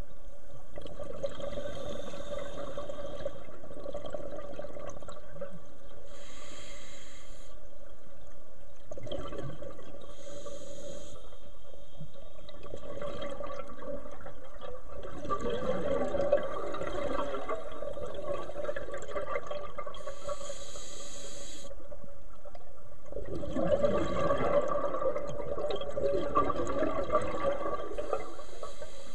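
Scuba regulator breathing underwater: short hissing inhalations through the regulator alternate with long bubbling exhalations, the loudest two in the second half.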